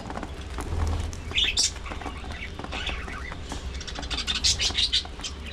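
Budgerigars chirping and chattering in short high bursts, busiest in a rapid flurry about four seconds in.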